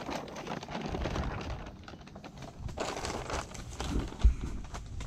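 Handling noises: crinkling and small clicks and knocks, as of foil sheeting, bottles and pots being moved, with one sharp knock about four seconds in.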